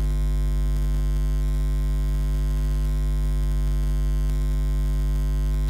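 Steady electrical mains hum, a low buzz with its overtones stacked above it, unchanging throughout.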